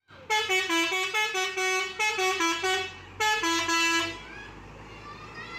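A truck's multi-tone 'telolet' musical horn plays a quick stepping melody in three phrases, stopping about four seconds in. A low engine hum and faint voices remain after it.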